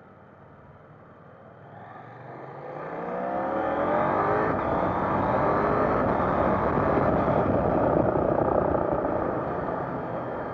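KTM 890 Duke GP's parallel-twin engine accelerating, its pitch rising over a couple of seconds, then running loud at speed with wind rush on the bike-mounted camera. It eases off a little near the end.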